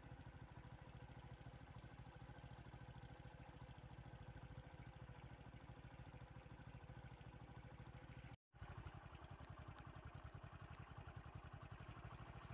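Faint, steady low rumble of an idling vehicle engine, with a brief break in the sound about eight and a half seconds in.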